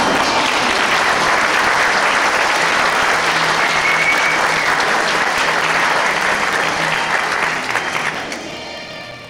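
Theatre audience applauding steadily, the clapping dying away near the end.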